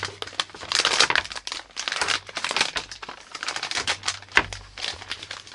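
Crinkling and rustling of a Cadbury Dairy Milk chocolate bar's wrapper as it is peeled open by hand, in irregular bursts with a sharper crackle near the end.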